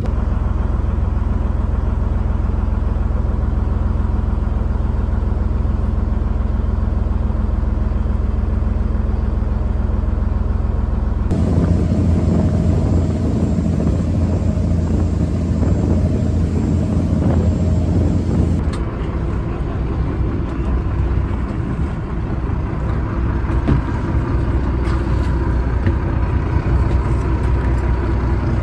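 Fishing boat's engine running with a steady low drone. The sound changes abruptly about 11 seconds in and again about 19 seconds in.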